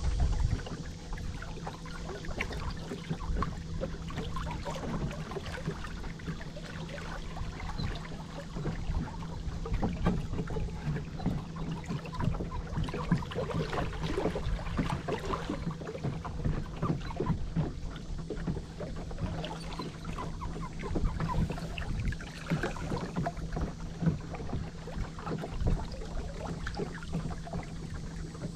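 Small fishing boat moving slowly at trolling speed: a steady low motor hum with irregular splashing of water against the hull.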